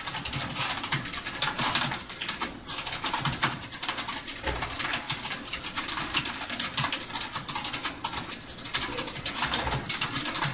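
Fast continuous typing on a UtechSmart Saturn non-mechanical gaming keyboard: a dense, irregular stream of key clicks with soft low thumps as the keys bottom out.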